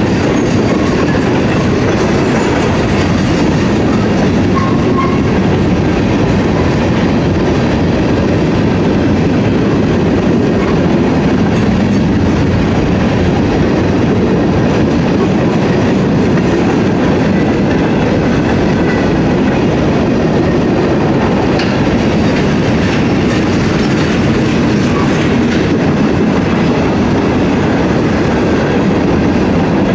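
Covered hopper cars of a freight train rolling past, a steady, loud noise of steel wheels running on the rails with the rattle of the cars.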